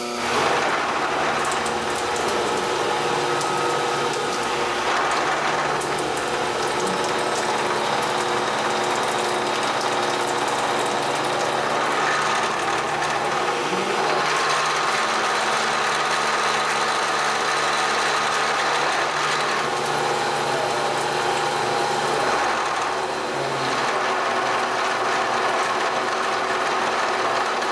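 Milling machine with an indexable face mill cutting a flat into a round metal block, a steady, dense cutting noise that swells and eases slightly a few times along the pass.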